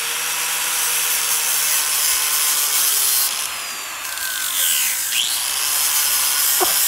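Angle grinder with a carving disc running against an oak walking stick, grinding grooves into the wood: a dense hiss of abraded wood over the motor's whine. It eases off for about a second a little past the middle, bites in again, and drops away at the end.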